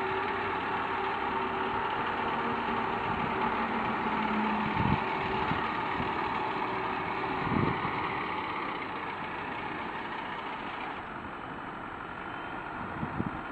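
SAME Explorer 65 tractor with a sickle bar mower, running steadily at a distance, with a low steady hum. The sound eases off somewhat after about eight seconds.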